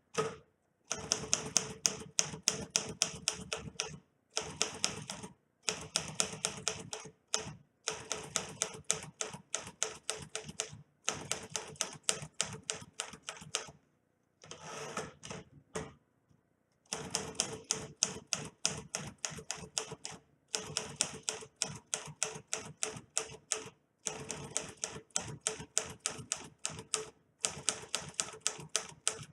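1957 Remington Quiet-Riter manual portable typewriter being typed on: quick runs of sharp key strikes, many a second, broken by short pauses.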